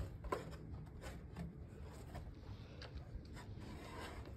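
Faint scuffing and rubbing of clothes and shoes against a wooden privacy fence as a boy climbs over it, with a few soft knocks against the boards.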